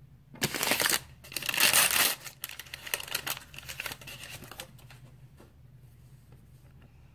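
Plastic blind-bag packet being torn open and crumpled: two loud bursts of crinkling in the first two seconds, then lighter crackling that dies away a little past the middle.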